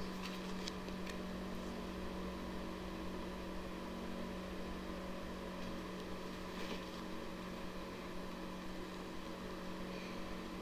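A steady low hum of background room noise. A few faint taps and rustles come from a picture book being handled, near the start and again about two-thirds of the way through.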